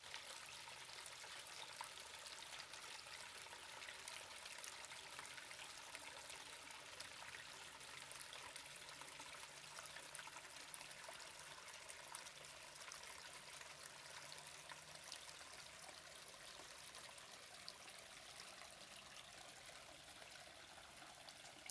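Faint, steady trickle of water running over rock in a seasonal ravine stream that flows only after days of heavy rain.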